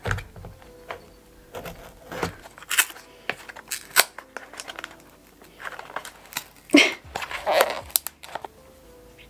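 A cardboard mailer is cut open with scissors and pulled apart, in a string of snips, scrapes and paper crinkles as the contents are drawn out. The busiest rustling comes about seven seconds in.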